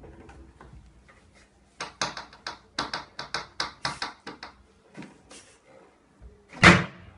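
Wooden lift-top coffee table being worked: a quick run of short wooden clicks and knocks, about three or four a second, as the hinged top and its arms move, then a single heavier wooden knock near the end, the loudest sound.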